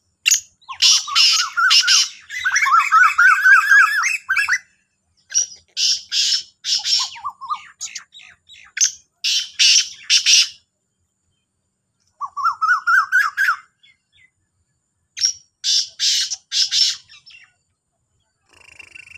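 Black francolin calls: about five bouts of harsh, grating notes mixed with quick runs of rising chirps, with short pauses between the bouts.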